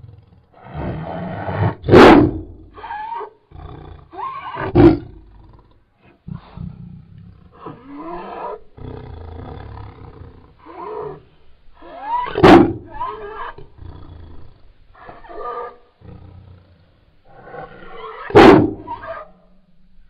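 Bengal tiger vocalising in a string of hoarse growls and roars, four of them much louder than the others, spread through the stretch, with quieter growls in between.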